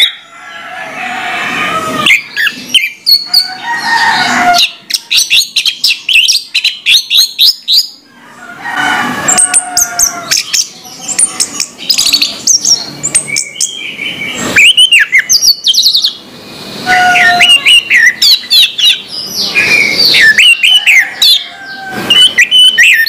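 Orange-headed thrush (anis merah) singing loudly: a long run of rapid, varied chirps, whistles and trills, in phrases broken by short pauses.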